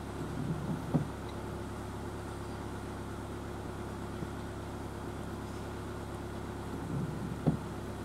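Steady low hum of an idling engine, with two brief thumps, about one second in and near the end.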